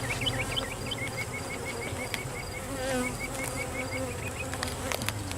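Honey bees humming steadily in and around an opened hive box. Over it runs a rapid series of short, high chirps, about four to five a second, and there are a couple of sharp clicks near the end.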